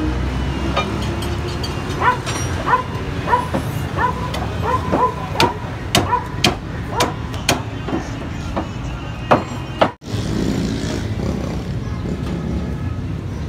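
Steady street traffic rumble. Over it, from about two seconds in, a run of sharp ringing metallic clinks, about two a second, stops just before a brief dropout, after which the traffic noise carries on.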